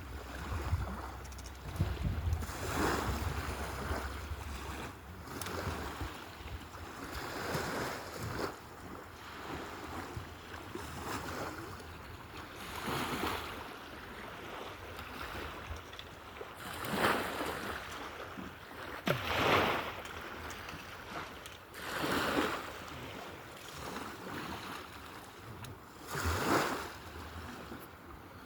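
Water washing and splashing in swells every few seconds, with wind rumbling on the microphone near the start.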